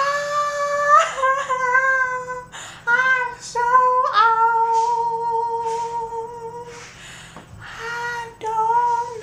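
A high solo voice singing a melody with no instruments behind it, holding one long note in the middle before going on with shorter phrases.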